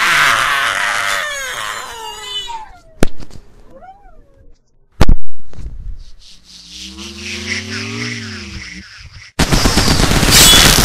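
Cartoon sound effects: two characters screaming, then two sharp hits, then a long wailing cry that rises and falls. Near the end a loud burst of rapid gunfire begins.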